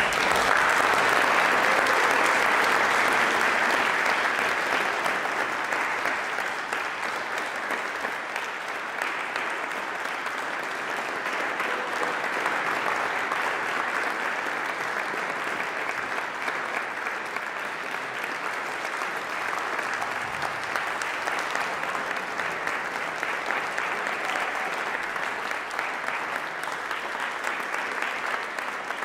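Audience applauding: a burst of clapping that is loudest over the first few seconds, then eases and settles into steady applause.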